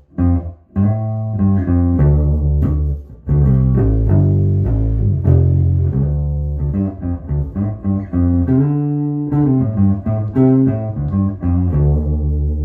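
1976 Rickenbacker 3000 short-scale electric bass played through a tube bass amp and 6x10 cabinet, a run of plucked notes and riffs with some notes held. The tone knob is at zero, which on this bass gives a bassy sound.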